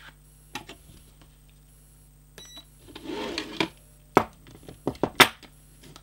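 A heavy brass Hamburger-Eight-style handcuff being handled and set down on a table. A brief scraping rustle comes about three seconds in, then a few sharp metallic knocks and clinks near the end, the last one the loudest.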